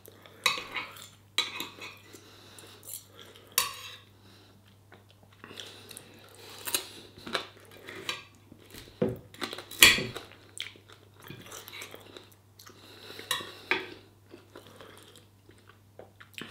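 Metal knife and fork clinking and scraping on a plate while cutting into and picking up curry and chips, in irregular taps and scrapes, loudest near the middle.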